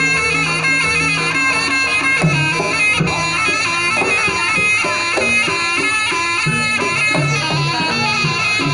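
Live jaranan senterewe gamelan music: a reedy slompret (Javanese shawm) playing a sustained, wavering melody over a low held tone, with drum and gong strokes coming in more busily about two seconds in.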